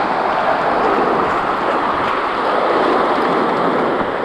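A vehicle passing close by: a rush of tyre and road noise that swells and then fades away.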